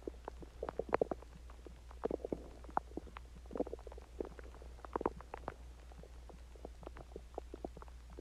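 Human stomach and intestines gurgling while digesting a meal and water: a run of short wet pops and gurgles in uneven clusters, loudest about a second in, over a steady low hum.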